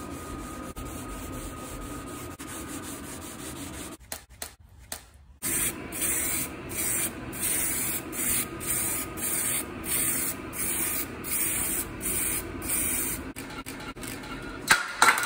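A sanding block rubs steadily over a car fender for the first few seconds. After a short pause, an aerosol spray paint can hisses in short, even bursts, about two a second, as the fender is painted. A sharp knock comes near the end.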